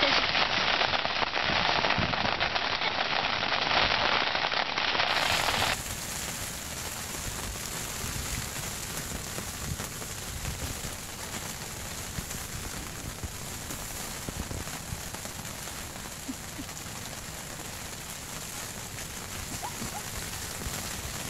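Rain pattering steadily on the fabric roof of a pop-up ground blind, a dense crackle of small drops. About six seconds in it drops to a quieter, softer patter.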